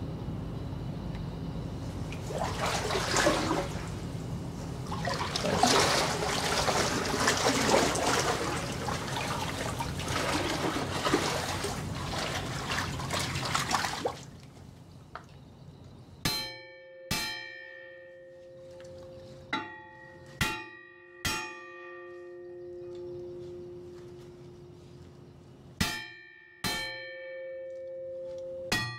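About eight sharp metal strikes on a propeller held under load by a hydraulic puller, each leaving the metal ringing: a shock blow to break the prop free of its shaft taper. Before the strikes there is a loud rushing, splashing noise that stops abruptly about fourteen seconds in.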